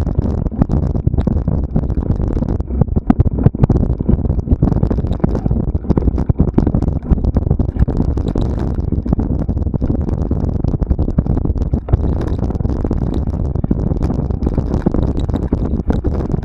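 Mountain bike ridden over a rough trail: a continuous low rumble and rattle with many sharp, irregular knocks.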